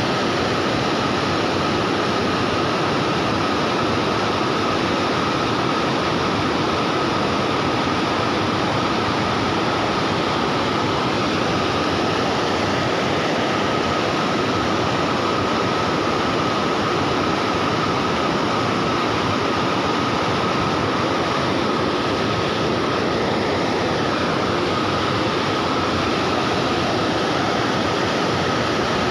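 Water spilling over a low river weir: a steady, even rushing. A faint steady high tone runs through it.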